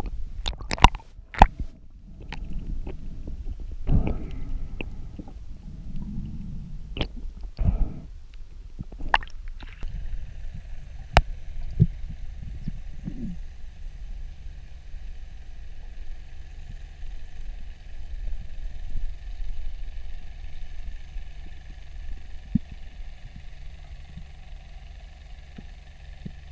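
Underwater sound through a camera housing: a low rumble of moving water with scattered sharp clicks and knocks in the first ten seconds or so, then a steadier faint hum.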